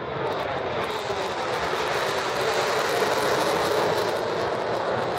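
Jet roar of a Blue Angels F/A-18 Hornet's twin turbofans as the jet passes overhead, growing louder toward the middle with its pitch sliding slowly downward.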